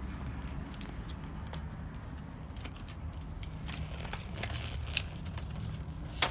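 Scattered clicks and crinkles of plastic toy packaging being handled and opened, with a sharp click near the end, over a steady low rumble.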